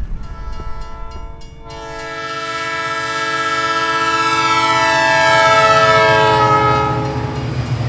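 Train horn sounding one long blast of several tones at once, swelling as the train approaches, then dropping in pitch and fading as it passes, over the low rumble of the train.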